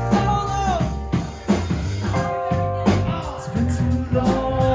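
Live rock band playing: drum kit keeping a steady beat under bass, keyboards and guitar, with a melody line holding long notes over the top.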